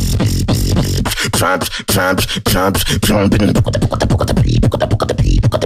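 Beatboxing: a fast vocal beat of kick and snare-like clicks over a deep bass hum, with a wobbling, sliding vocal bass sound in the middle.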